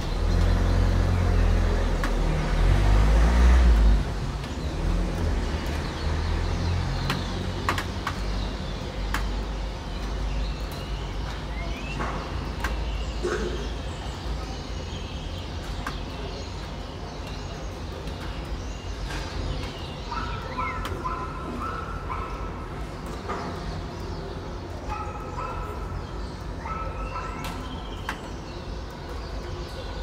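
Evening city ambience: a vehicle rumbles past in the first few seconds, the loudest sound, then starlings keep up a chatter of chirps and whistles over a low traffic hum. Scattered sharp clicks run through it, and groups of short repeated calls come in the second half.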